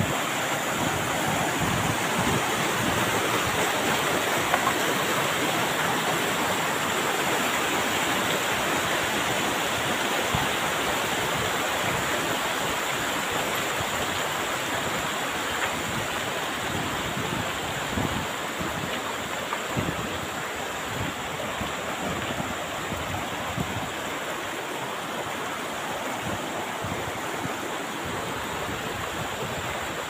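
Rushing mountain stream tumbling over rocks and small rapids, a steady hiss of water that grows gradually a little fainter over the second half.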